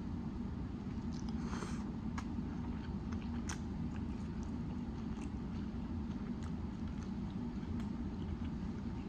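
A person chewing and biting a grinder sandwich close to the microphone, with scattered wet mouth clicks and a brief crunchy smear about a second and a half in, over a steady low hum.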